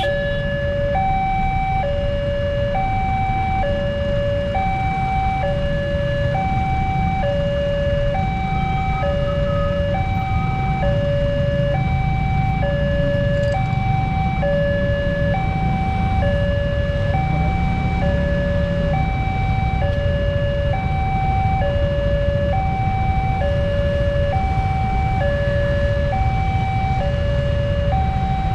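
Railway level-crossing warning alarm sounding its steady two-tone signal, a lower and a higher tone alternating about once a second, over a constant low rumble.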